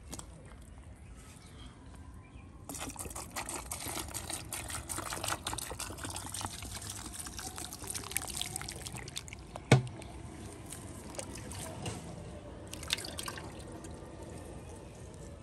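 Shallow muddy water trickling and splashing in a dug mud channel, a dense crackle of small splashes from about three seconds in, with one sharp knock near the middle and a shorter splash burst near the end.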